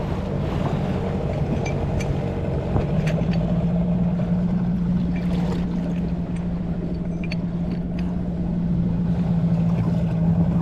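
Outboard motor on an inflatable boat idling in neutral, a steady hum that firms up about three seconds in. A few light clicks sound over it.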